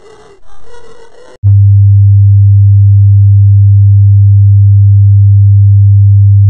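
About a second and a half in, a short stretch of processed, warbling audio is cut off abruptly by a synthesized low sine tone. The tone is extremely loud and holds steady at one pitch, with no variation.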